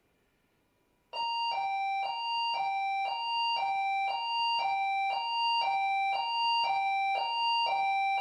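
Electronic doorbell-style ding-dong chime, a high note then a lower note, repeating about once a second. It starts about a second in and cuts off abruptly at the end.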